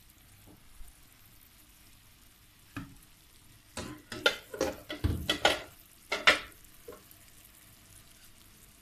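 Sugar-and-lemon syrup boiling in a pot, with a faint steady bubbling, while a silicone spatula stirs it. Around the middle comes a quick run of scrapes and knocks of the spatula against the pot.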